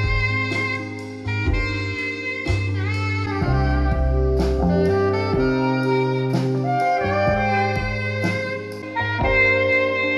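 Music played back through loudspeakers with a Logitech Z-2300 subwoofer: a steady bass line under sustained melodic notes, with a beat struck every second or so.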